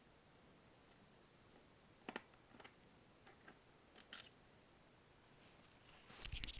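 Near silence broken by a few faint, sharp clicks from a VHS cassette and its screws being handled, then a louder knock and rustle of the plastic cassette being moved near the end.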